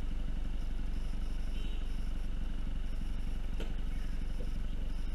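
Exhaust of a 2015 MINI Cooper Hardtop with John Cooper Works tips, the engine idling with a steady low rumble.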